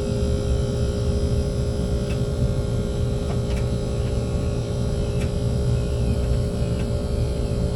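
Air-conditioning unit with water-cooled lines running steadily after start-up: an even hum with two steady tones over a low rumble.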